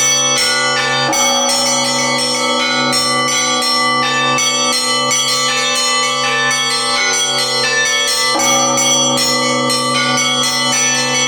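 Russian church bells rung in a festive peal (prazdnichny zvon): rapid, interlocking strikes over a steady low ring, with a heavier stroke about a second in and again near the end.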